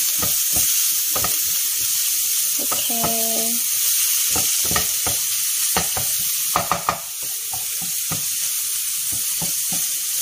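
Minced pork sizzling as it fries in oil in a non-stick pan, with a wooden spatula scraping and knocking against the pan as it is stirred, many short strokes over a steady sizzle.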